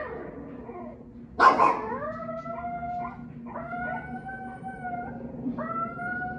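A dog gives one sharp cry about a second and a half in, then howls in three long, drawn-out notes that each rise a little and then hold steady.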